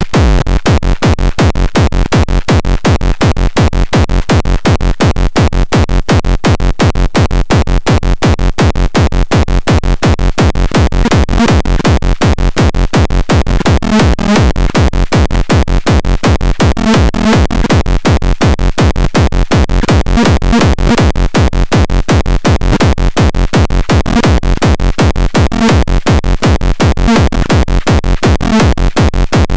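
Minimal techno track playing loud and steady on an even, fast-repeating beat; short repeating pitched synth notes come in about halfway through.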